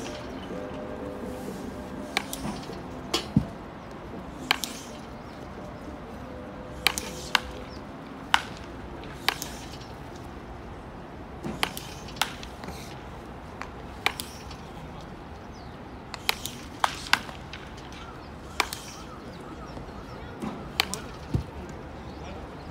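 Baseball bats cracking against pitched balls in several batting cages at once: about eighteen sharp cracks at irregular intervals, a second or two apart, over a steady low background noise.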